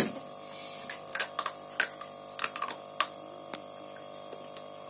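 Steady electric hum of an aquarium pump, with a run of sharp clicks and taps between about one and three and a half seconds in.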